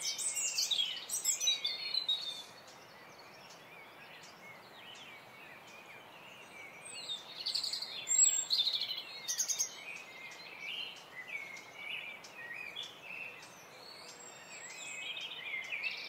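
Several small birds singing and chirping together in a dense chorus of quick high notes. The chorus is busiest in the first two seconds and again about seven to ten seconds in.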